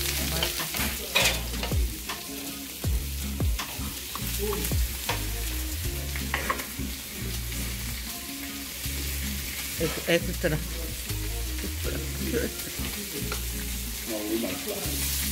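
Pork belly and squid sizzling steadily on a hot parchment-lined tabletop griddle, with occasional sharp clicks.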